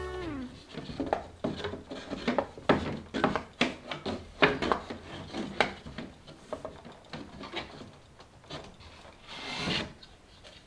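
Wooden shelves of a slot-together tiered display stand being handled and fitted into place: a quick run of wood-on-wood knocks and clatters, thinning out after about six seconds, with a rubbing scrape near the end.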